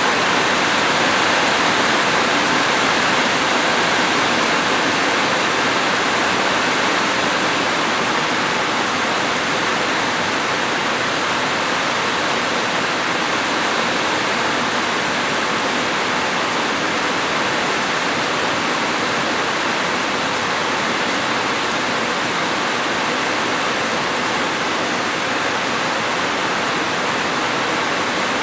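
Steady, dense rainfall: an even, unbroken hiss of rain with no separate drops or other events standing out.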